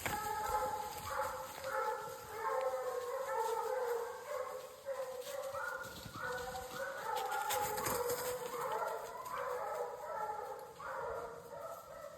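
A pack of bear-hunting hounds baying, several drawn-out voices overlapping without a break: the pack is on a bear's track.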